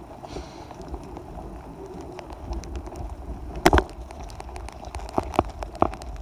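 Steady low rumble of wind and road noise on a handheld phone's microphone, with a few sharp knocks, the loudest about three and a half seconds in and three smaller ones near the end.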